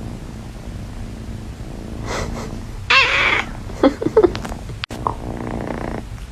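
Domestic cat purring steadily, then giving one loud meow about three seconds in, followed by a few short mews.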